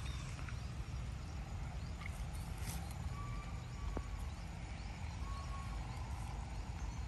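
Steady low outdoor rumble with a faint hiss, crossed by a few faint short high calls and light clicks.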